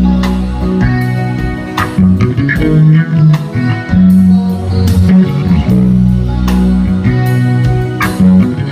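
Live rock band playing an instrumental passage: sustained electric guitar and bass chords with a drum kit (Gretsch), cymbal crashes marking the changes every second or two.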